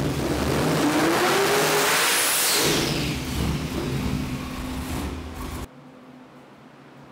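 Hennessey Venom F5 'Fury' twin-turbo V8 revving under load on an engine dyno. The pitch climbs and then falls away after about two and a half seconds. The engine sound cuts off suddenly near the end, leaving only a faint low hum.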